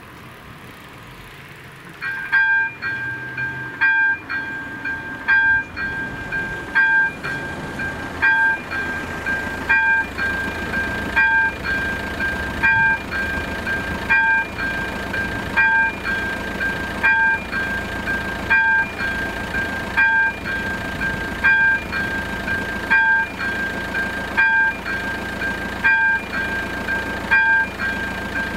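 Electronic level-crossing bell starting about two seconds in and ringing on in even, repeated dings: the warning that a train is approaching. A low rumble builds underneath from about a third of the way in.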